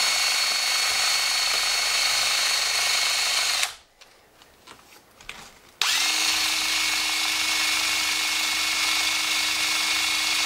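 Cordless drill running steadily, pressed against a plastic box of freshly poured plaster investment to vibrate air bubbles out of the mold. It stops about three and a half seconds in and starts again two seconds later.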